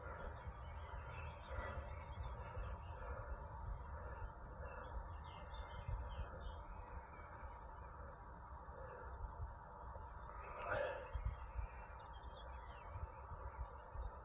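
Crickets trilling steadily in a grassy meadow as one continuous high-pitched tone, over a low fluttering rumble. A few faint chirps come through, and a brief louder sound about three quarters of the way through.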